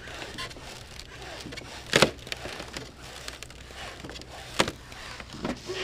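Sharp cracks and crackles of a glaze of ice breaking as a frozen-shut tailgate is worked at. The loudest crack comes about two seconds in, with smaller ones around it and another sharp crack near the end.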